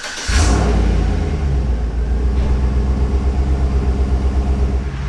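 A 2007 Chevrolet Silverado pickup's engine starting, with a brief flare of revs as it catches, then settling into a loud, steady idle with a low, even pulse.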